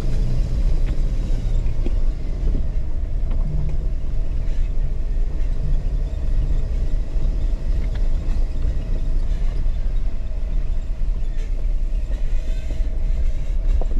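Jeep crawling slowly over a rocky off-road trail: a steady low engine and drivetrain rumble, with a few faint knocks from rocks under the tyres.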